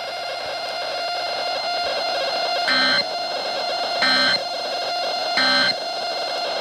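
Emergency Alert System end-of-message signal: three short, shrill digital data bursts about a second apart, over steady static.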